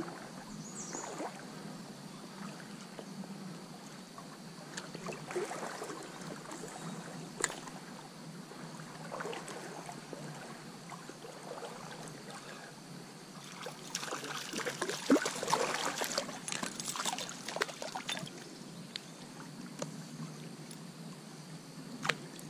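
Trout stream water trickling, with scattered faint clicks and knocks, and a louder, rougher stretch of water noise about two-thirds of the way through.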